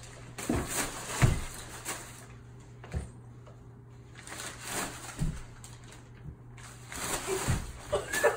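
Large brown paper bag crinkling and rustling as it is dragged and swished, in three spells, with several dull thumps along the way.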